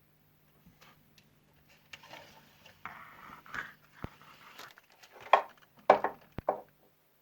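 Power-supply test probes scraping and tapping across the LEDs on an LED lamp's board while it is checked for burnt-out diodes, with three sharper clicks near the end.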